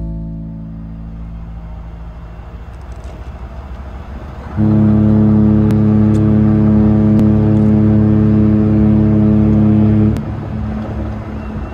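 A low rumble, then a ship's horn sounds one long, steady, deep blast, starting about four and a half seconds in and lasting about five seconds.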